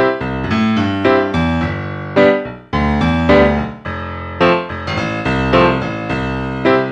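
Background piano music: a steady run of single notes, struck one after another.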